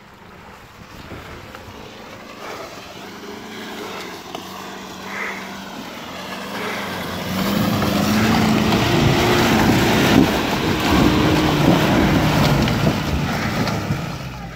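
Off-road pickup truck's engine working under load as it drives through deep mud toward and past the camera. It grows much louder about halfway through, the revs rising and falling, then fades near the end.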